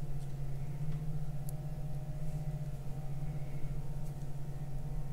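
A steady low hum with a fainter, higher steady tone above it, and a few faint clicks as small parts are handled: the metal drive key being fitted into a rubber outboard water-pump impeller.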